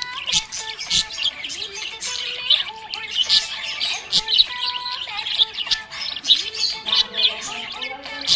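Budgerigars chirping and warbling without pause: rapid high, clicky trills and chirps overlapping one another.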